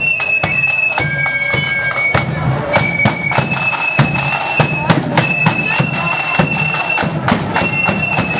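Marching flute band playing a tune: high flute notes held and stepping from pitch to pitch over frequent snare drum strokes and a bass drum beat.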